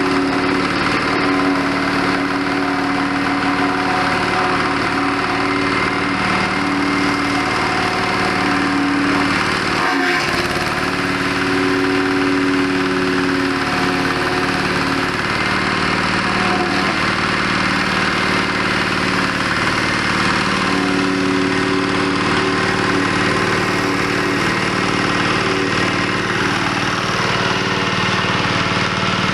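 Wood chipper running steadily, its engine's hum layered with a dense, noisy rattle, with a brief break about ten seconds in.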